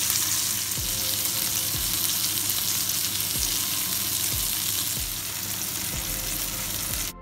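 A ribeye steak and vegetables sizzling in hot fat on a ridged grill pan. The steady frying hiss cuts off sharply near the end.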